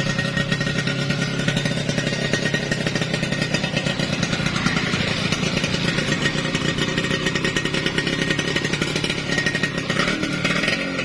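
Yamaha F1ZR two-stroke motorcycle engine, bored out to 116 cc, running steadily with a rapid, even train of firing pulses.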